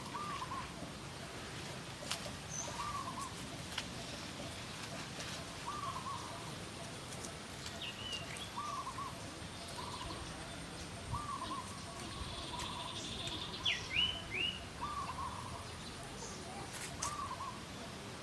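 Bird calling over and over, a short double note repeated every one and a half to three seconds, with a few sharper, higher chirps from another bird in the middle.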